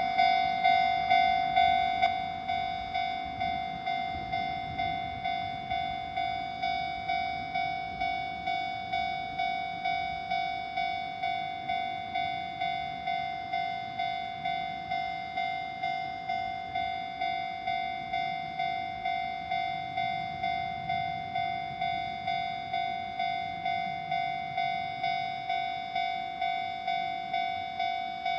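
Japanese railroad crossing warning bell ringing: a repeating electronic clang, about three strikes every two seconds, each fading before the next. It drops a little in loudness about two seconds in.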